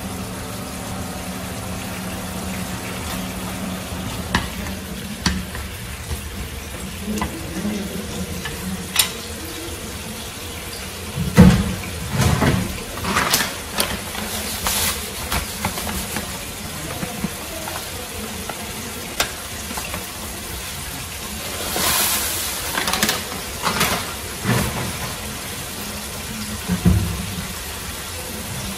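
Chopped tomatoes in sauce sizzling and simmering in a frying pan, with scattered clicks and a few louder knocks and clatters.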